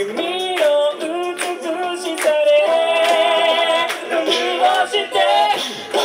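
A cappella ensemble singing: a male lead voice over backing vocal harmonies from mixed voices, with scattered sharp percussive hits.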